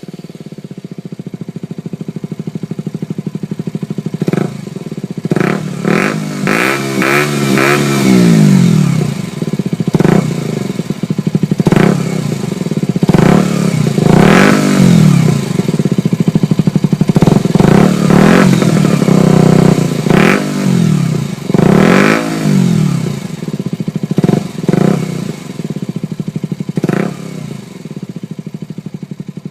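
KTM Duke 125's single-cylinder four-stroke engine idling and being revved over and over with short throttle blips, each rev rising and falling back to idle. The longest, highest rev comes about six to eight seconds in.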